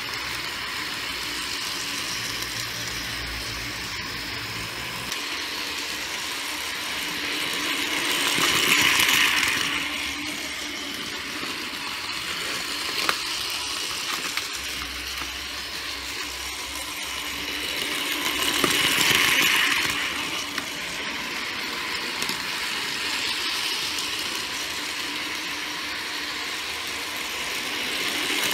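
Battery-powered toy trains running on plastic Plarail-type track: a steady whirr of small motors with wheels rattling over the rails. The sound swells three times, about ten seconds apart, as a train passes close by.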